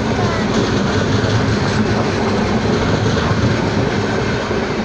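Indian Railways passenger coaches passing close by on the adjacent track: a steady, loud rumble of wheels running on the rails, with a few faint clicks.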